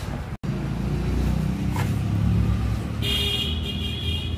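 Street traffic: a vehicle engine rumbles steadily close by, and a high ringing tone joins near the end.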